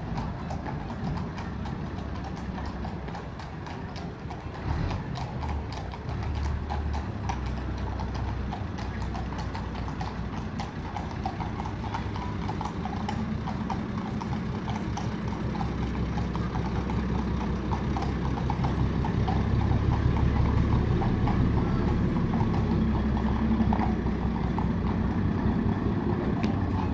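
Horse hooves clip-clopping at a walk on cobblestones as a horse-drawn carriage passes. Under them a vintage open-top double-decker bus engine runs with a low steady hum, growing louder as the bus draws near towards the end.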